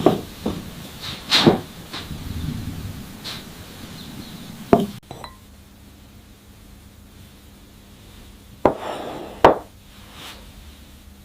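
Kitchen cookware and utensils knocking and clinking: scattered sharp knocks, several in the first half and two or three more near the end.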